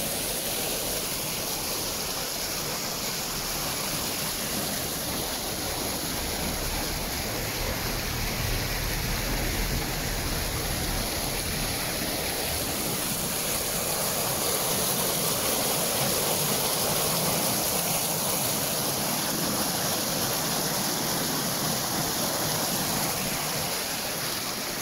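Muddy floodwater rushing in a swollen wadi after heavy rain, spilling over a concrete edge in a steady, even rush of water.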